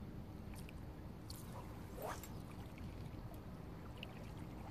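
Sea water lapping and sloshing against the rocks of a shore, with a short rising swish about two seconds in.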